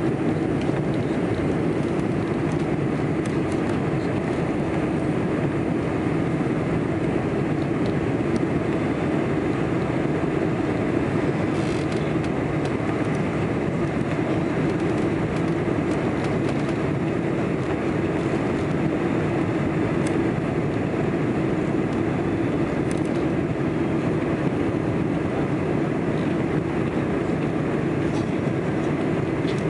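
Steady cabin noise of a Boeing 747-400 on final approach with flaps extended: engines and rushing air heard from inside the passenger cabin, a constant low rumble.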